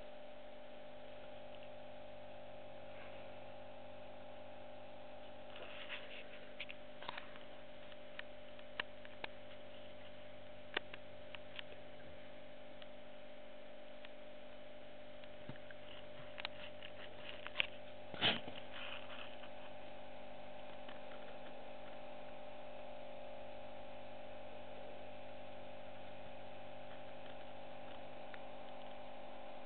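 Steady electrical hum, with a scattering of small clicks and ticks in the middle, the loudest a short knock a little past halfway.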